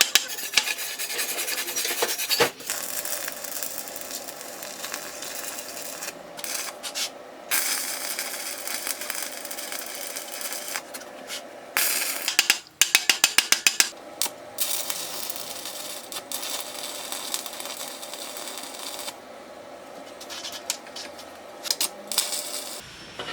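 Metal being worked by hand with a file or similar tool: rubbing, rasping strokes that come in runs with short pauses, including a quick burst of rapid strokes about halfway through.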